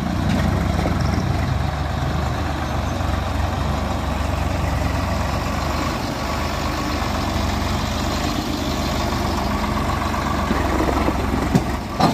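Swaraj 855 FE tractor's three-cylinder diesel engine running steadily at low speed as it pulls a trolley loaded with sugarcane past at close range. A short sharp knock comes near the end.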